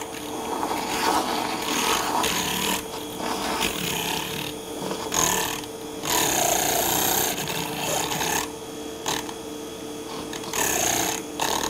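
Handheld milk frother running, its small motor giving a steady whine while the spinning whisk churns egg whites and gelatin in a glass measuring cup. A rough, whooshing noise swells and drops every second or so as the whisk is moved around in the liquid.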